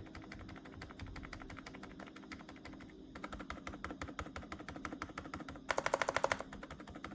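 Mechanical keyboard with Outemu Silent Yellow Jade silent tactile switches, in a plastic case with a polycarbonate plate, being typed on rapidly: a quiet, muted stream of key clicks, damped by the switches' rubber pads. A louder burst of fast strokes comes about six seconds in.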